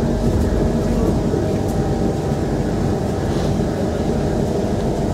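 Steady running noise inside a Kawasaki Heavy Industries C151 metro train car in motion: a constant low rumble of wheels and running gear with a faint steady hum.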